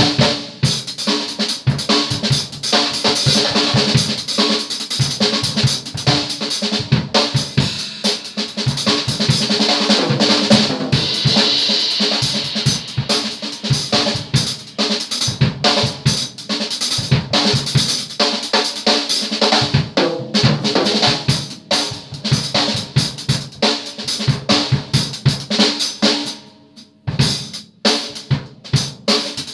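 Drum kit played continuously with busy strokes on snare, toms and bass drum under a bright cymbal wash. The wash swells around the middle, and the playing thins to a brief lull near the end before picking up again.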